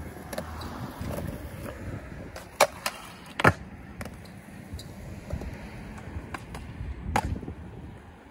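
Skateboard wheels rolling on concrete with a steady rumble, broken by sharp clacks of the board, the loudest about three and a half seconds in and another about seven seconds in.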